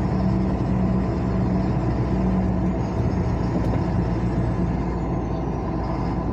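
A car being driven along a highway: steady engine hum and road noise.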